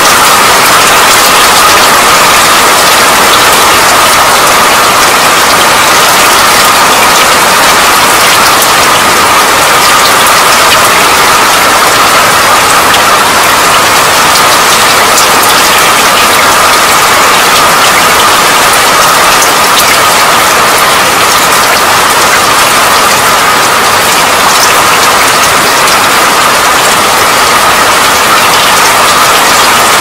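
Loud, steady rain: a dense, even hiss dotted with many fine drop ticks, unchanging throughout.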